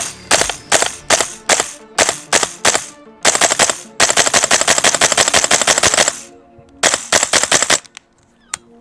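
Vipertech HK416 gas blowback airsoft rifle firing: a quick string of about ten single shots, then a short burst, a full-auto burst of about two seconds, and another short burst about seven seconds in.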